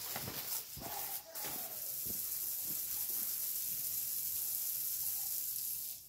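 Garden hose running, water spraying with a steady hiss, with a few faint knocks in the first couple of seconds; the hiss cuts off abruptly near the end.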